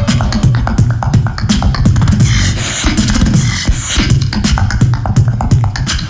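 Very fast human beatboxing into a handheld microphone through a PA: rapid snare- and hi-hat-like clicks over a deep bass. For about two seconds in the middle, the sharp hits thin out into a hissing, buzzing passage, then the fast hits come back.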